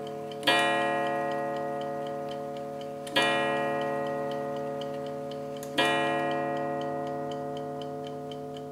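Charles Viner double fusee table clock striking on its coiled wire gong: three hammer blows about two and a half seconds apart, each ringing on and slowly fading. Underneath runs the quick, steady ticking of its lever platform escapement.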